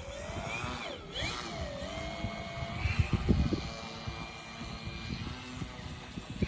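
Model plane's motor and propeller whining in the air, the pitch sliding up and down as it flies, with wind rumbling on the microphone.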